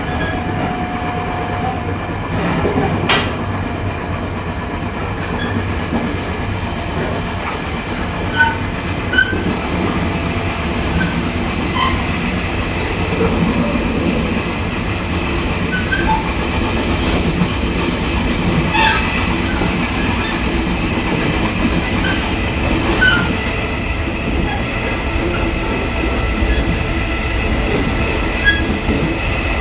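Running noise of an E500-hauled push-pull express train at about 90 km/h: a steady rumble of wheels on rail with scattered sharp clicks, carrying the beat of wheels that are out of round.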